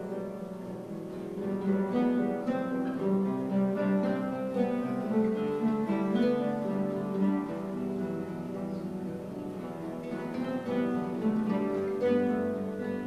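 A guitar orchestra of classical guitars playing a piece together, with plucked notes moving in several parts at once.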